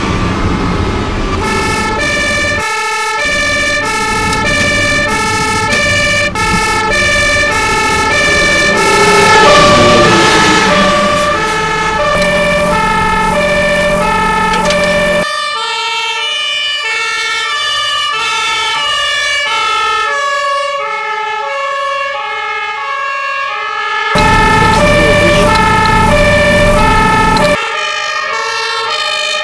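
Fire engine's two-tone siren alternating steadily between a high and a low note over the truck's engine rumble. The pitch sweeps briefly about ten seconds in, and the engine rumble drops out abruptly about halfway through, returns briefly near the end, then drops out again.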